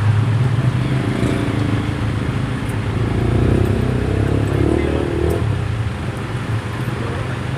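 Vehicle engines running in stalled traffic on a flooded street, a steady low hum with another engine rising and falling for a couple of seconds midway. Under it, an even hiss of heavy rain falling on the floodwater.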